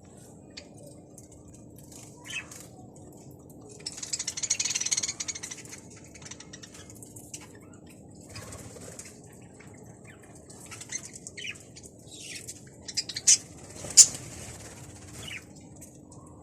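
Indoor birds flapping their wings in a quick burst of fluttering, with short chirps now and then. Two sharp clicks near the end are the loudest sounds, over a faint steady hum.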